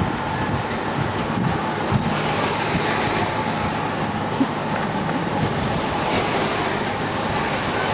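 Steady noise of a motor vehicle running close by, with a faint steady hum.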